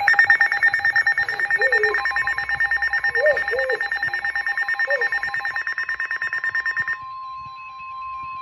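Weather-radio alert tones: a rapid pulsing alarm beep runs until about seven seconds in. About two seconds in, a steady single attention tone of roughly 1 kHz joins it and carries on alone after the beeping stops. This follows the data header of a new warning.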